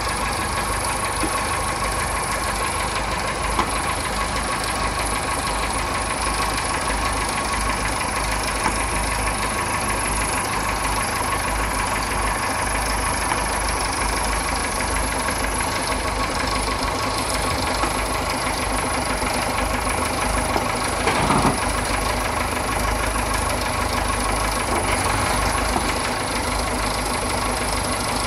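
Nuffield tractor engine running steadily at low idle, with one brief louder burst about three-quarters of the way through.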